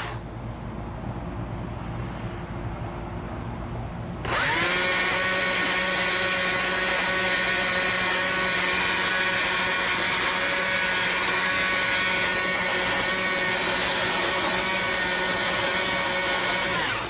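A handheld power tool carving wood: its motor spins up about four seconds in, runs steadily at speed, and winds down just before the end.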